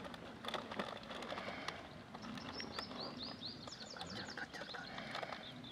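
A bird calling: a quick run of short, falling chirps, several a second, about halfway through, then fainter repeats, over soft outdoor background noise.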